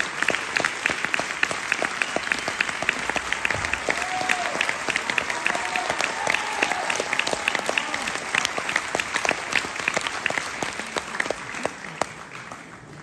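Theatre audience applauding, with many sharp individual claps standing out; the applause fades away over the last few seconds.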